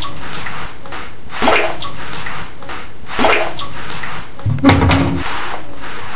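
Water sloshing in repeated swishes, about one every one and a half seconds, over a steady hiss of water; the fourth swish, near the end, is the heaviest.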